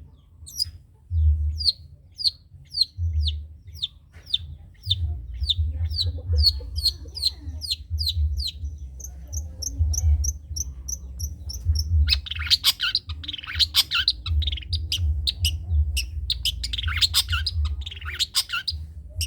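Long-tailed shrike (cendet) singing a 'trotol' song. It opens with a long run of repeated down-slurred high notes, about three to four a second and quickening. About nine seconds in comes a fast series of short, higher notes, and from about twelve seconds it breaks into dense, rapid chattering, all over a low rumble.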